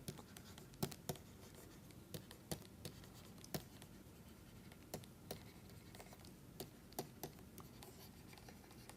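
Faint scratching and irregular light taps of a pen writing, with short strokes spaced unevenly.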